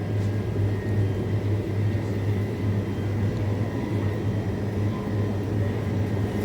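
Steady low electrical hum with a faint higher whine, typical of supermarket refrigerated freezer cases running.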